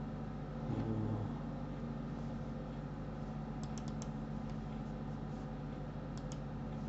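Steady low electrical hum with a few sharp computer mouse clicks: three quick clicks around the middle and two close together near the end.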